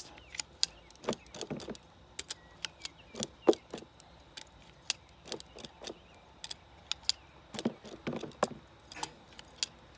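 Spring-loaded thumb inoculator clicking and tapping as sawdust mushroom spawn is plunged into holes drilled in an oak log: a quick, uneven run of sharp clicks.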